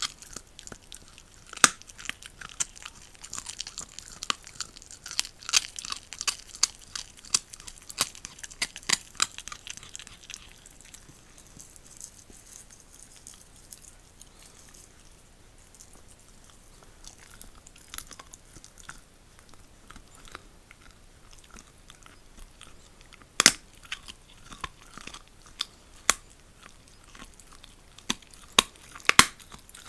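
Jack Russell terrier chewing a raw pig's trotter: a dense run of wet crunching and cracking as its teeth work the bone and skin, easing to sparser gnawing in the middle, with a few loud sharp cracks near the end.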